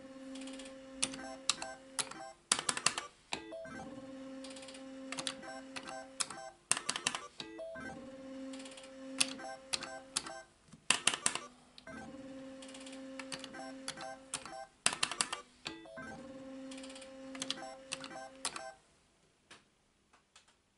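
Pachislot slot machine (Solex 2) played game after game, about five games roughly four seconds apart. Each game has a steady electronic tone while the reels spin, sharp clicks as the stop buttons halt the reels, then a short burst of loud mechanical clatter.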